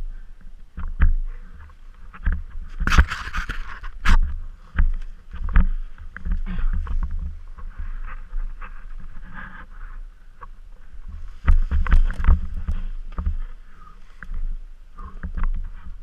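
Muffled, irregular knocks and thumps on an action camera carried on an enduro dirt bike jolting over rough, leaf-covered forest ground, with wind buffeting the microphone.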